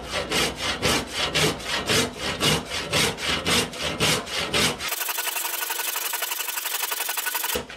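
Handsaw cutting lengthwise through an oak rafter, a rasping stroke about four times a second. For the last few seconds it changes to a faster, finer, even rasp that stops abruptly.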